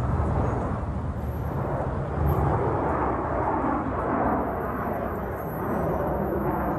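Jet aircraft engines roaring overhead during a flyby, a steady rush of noise that swells about two seconds in.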